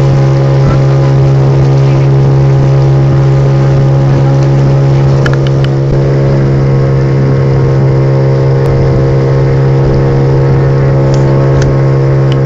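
Motorboat engine running steadily at cruising speed, one even, unchanging drone, with water rushing past the hull underneath.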